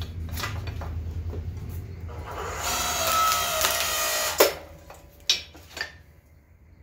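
Small electric hydraulic log splitter humming as its ram pushes into a log; the wood creaks and squeals under the load for a couple of seconds, then gives a sharp crack about four and a half seconds in as it splits, followed by two lighter knocks.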